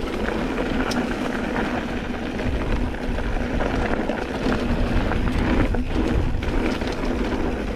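Mountain bike rolling fast down a dirt singletrack: a steady rush of tyre noise, bike rattle and wind on the handlebar-mounted camera, with a few small knocks from the trail.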